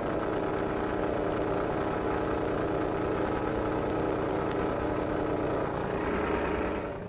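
Small air-cooled single-cylinder diesel engine running steadily, driving a piston air-compressor pump that is pumping up the tank. The sound cuts off suddenly near the end.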